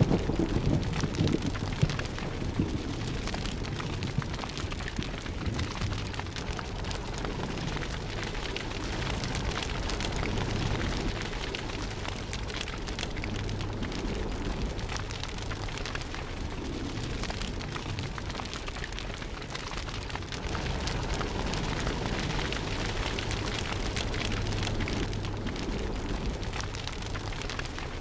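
Sound of a large fire burning: steady crackling over a low rumble.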